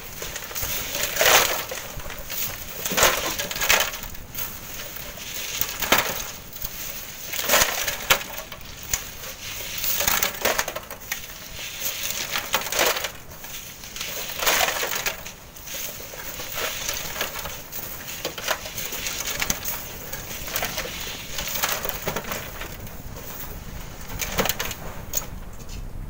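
Shovels scraping up and tossing sand and gravel onto a sieve, a gritty scrape-and-throw repeating about every one to two seconds.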